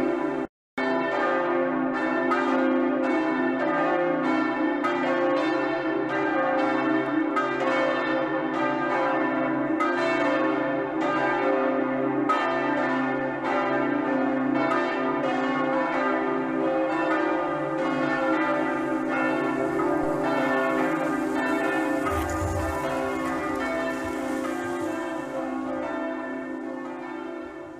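Church bells ringing a peal, stroke after stroke overlapping into a continuous ringing. The sound cuts out briefly just after it starts and fades away near the end.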